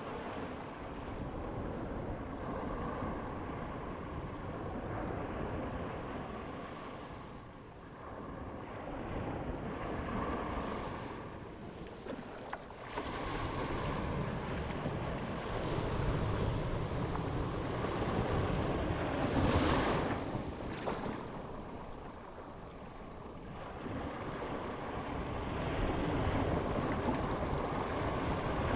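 Sea waves breaking and washing back: a steady rushing that swells and ebbs every several seconds, loudest about twenty seconds in.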